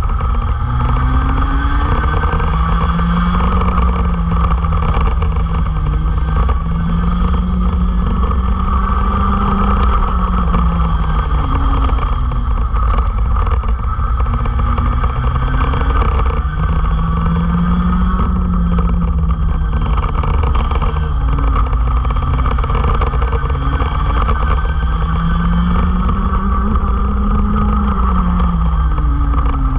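Racing kart engines at full throttle heard onboard. The engine pitch drops several times as the karts slow for corners and climbs again on the straights, over a dense, steady low rumble.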